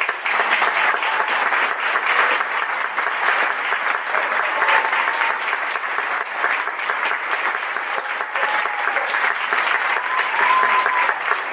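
Audience applauding: dense, steady clapping from a large crowd at the end of a talk.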